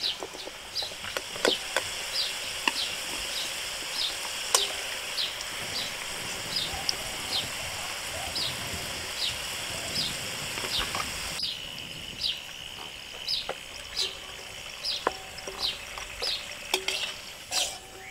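Diced potatoes frying in hot oil in an aluminium wok: a steady sizzle that drops off about eleven seconds in, with clicks of a slotted spoon against the wok as the pieces are lifted out. A bird chirps over and over at a steady pace.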